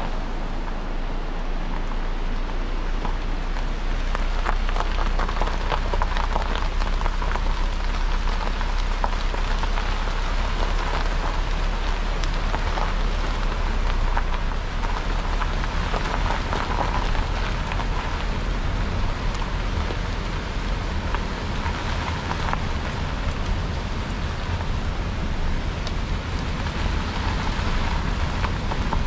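Steady low rumble and dense crackle of a vehicle's tyres rolling over a gravel road, with the rush of a rocky mountain stream mixed in.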